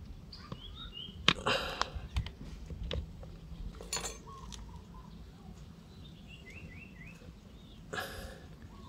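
Sharp clicks and knocks of a plastic keyless drill chuck being handled and fitted onto an old drill. A small bird chirps a few quick notes in the background twice.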